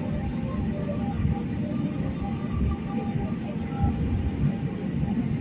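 Airliner cabin noise while taxiing: a steady low rumble from the engines and the wheels rolling over the taxiway.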